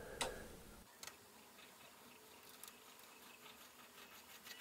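Near silence, with a sharp click about a quarter second in and a fainter one about a second in: metal clicks from a three-jaw pulley puller being handled and fitted to the lathe's spindle pulley.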